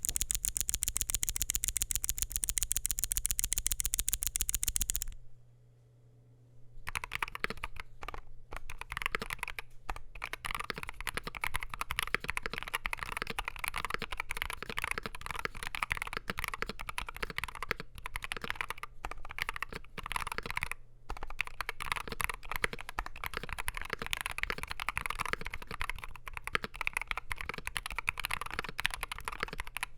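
Typing on a Wooting 60HE mechanical keyboard with lubed Gateron Lekker Hall-effect switches, aluminium plate and PBT keycaps in a Klippe-T case: steady, dense keystrokes from about seven seconds on. It opens with a bright, very fast, evenly spaced run of sharp clicks lasting about five seconds, then a brief pause. A low electrical hum sits underneath.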